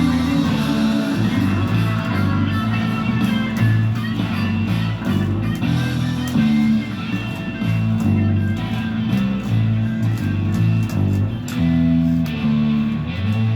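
Rock music: an electric guitar plays a riff in A over a bass line.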